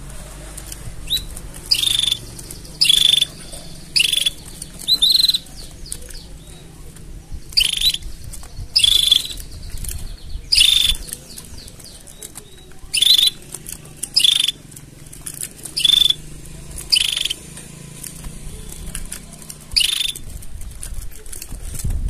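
Canary giving short, sharp high-pitched chirps, about a dozen spaced one to two seconds apart, over a faint low steady hum.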